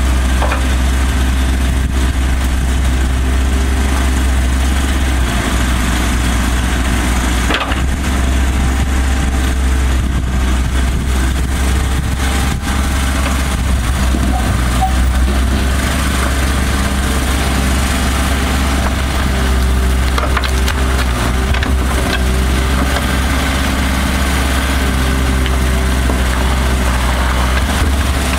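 Kubota mini excavator's diesel engine running steadily under hydraulic work, with occasional knocks and cracks of wood as its attachment grips and presses a log.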